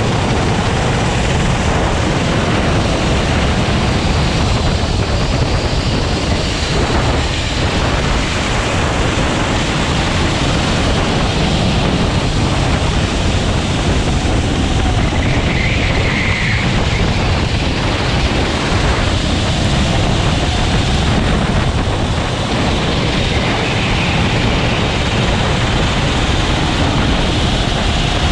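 Rental kart's Honda GX390 single-cylinder four-stroke engine running hard on track, its note rising and falling with the throttle, under heavy wind rush on the onboard microphone.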